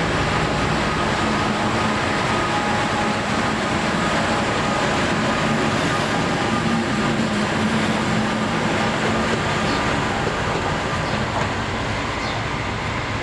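Italian FS D.445 diesel locomotive running past, a steady engine drone with a hum in it, dropping off slightly near the end as it moves away.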